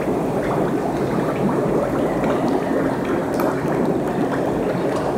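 Thick bentonite mud in a large vat bubbling and plopping as bursts of compressed air break through its surface: Rauschenberg's sound-activated mud sculpture "Mud Muse". The bubbling is steady and dense, with scattered sharper plops.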